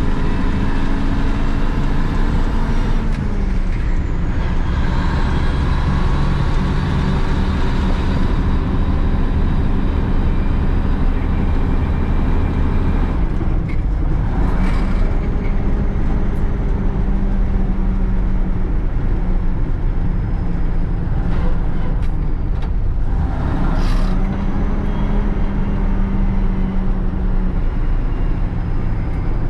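Old Ford Louisville grain truck engine and transmission running under a full load of soybeans, the transmission winding (whining) because the truck is full. The engine note drops and picks up again about three seconds in, near the middle and about two-thirds through.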